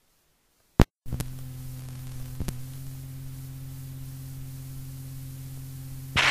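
Recording hum and hiss: after a click, a steady low electrical hum sets in over a background hiss, with a couple of faint clicks. A louder rush of noise starts just before the end.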